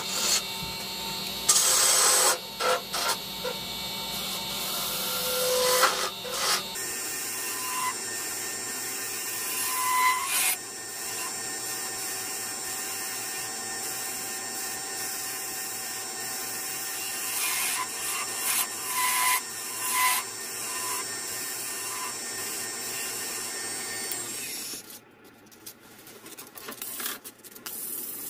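A gouge cutting a cherry-wood goblet spinning on a wood lathe: a continuous shearing, scraping noise as the tool peels off shavings, with louder strokes in the first several seconds. The cutting stops about 25 seconds in, leaving only faint handling sounds.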